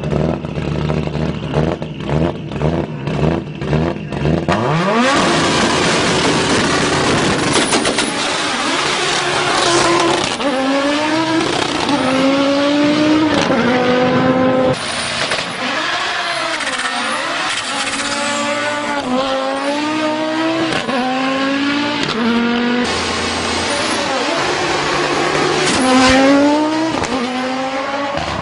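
Audi S1 engine revving in quick pulsing blips, then accelerating hard with a rising note and heavy noise. It goes on to pull through the gears, the pitch climbing and dropping back again and again, with tyre squeal at times.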